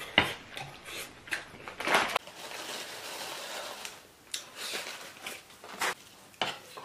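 Close-miked eating sounds: chewing and mouth clicks, then a plastic snack pouch rustling as seasoned seaweed flakes are shaken out into a bowl, followed by a metal spoon stirring and tapping in the bowl with several short clicks.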